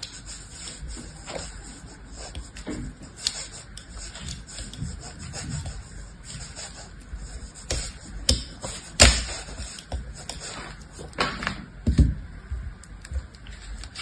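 A small blade scoring a crosshatch into a hard bar of soap: irregular crisp scratches and scrapes, with a few louder sharp clicks and knocks, the loudest about nine seconds in.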